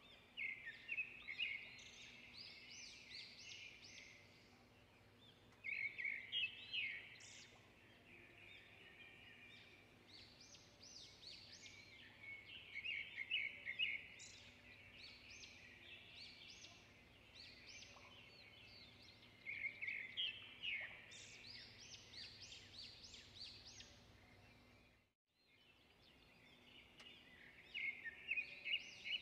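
A bird singing in the background in short bursts of quick chirping notes every few seconds, over a faint steady hum.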